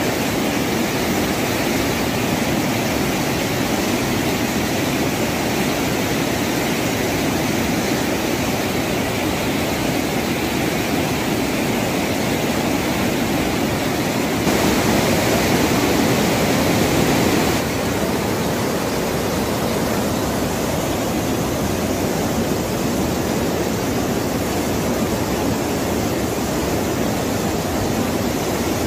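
Steady rushing noise of a swollen, muddy river in flood, briefly louder about halfway through.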